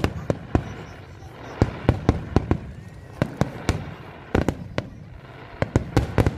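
Aerial fireworks display: a rapid, irregular string of shell bursts, loud bangs in clusters, over a continuous crackle.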